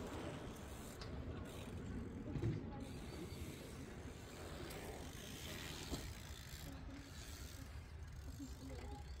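Absima Sherpa RC crawler's electric motor and gearbox running as it drives over gravel and grass, with a thump about two and a half seconds in.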